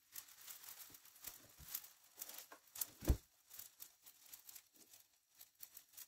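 Naan dough cooking in a hot oiled nonstick frying pan, crackling and popping irregularly, with one louder pop about three seconds in.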